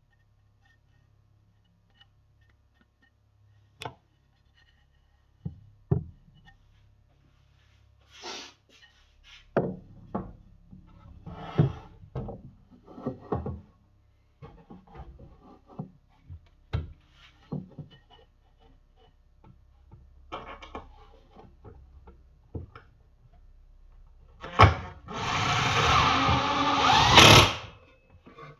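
Wooden boards knocking and clattering as pieces of a frame are handled and set in place, then a cordless drill running for about three seconds near the end.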